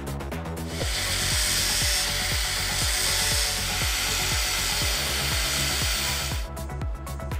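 An angle grinder grinds the steel top of a Tatra truck half-axle. It makes a steady grinding hiss that starts about a second in and stops about a second before the end, with background music and a steady beat underneath.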